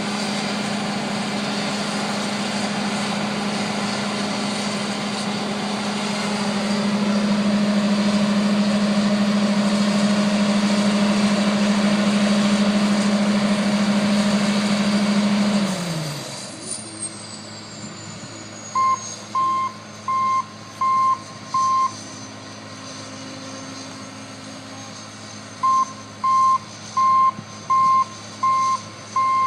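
Combine harvester running steadily under throttle, then throttling down about halfway through: the engine note drops and a high whine winds down in pitch as the machine spins down. A reversing alarm then beeps in two runs, about one and a half beeps a second.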